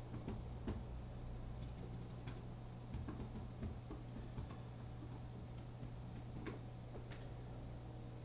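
Faint computer keyboard typing: irregular single key clicks, thicker in the first few seconds and sparser later, over a low steady hum.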